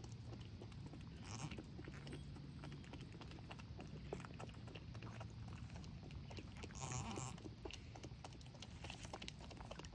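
Goats faintly vocalizing around a newborn kid, with a short bleat about seven seconds in, over rustling and small clicks.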